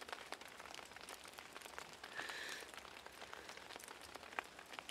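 Faint patter of light rain: scattered soft ticks over a low hiss.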